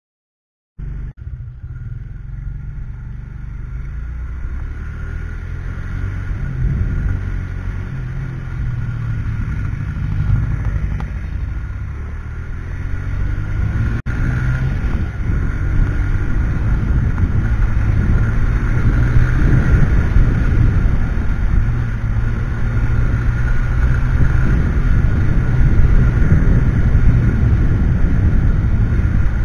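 Motorcycle riding along a street, heard through a helmet-mounted camera: a steady low engine and road rumble that starts about a second in and slowly grows louder.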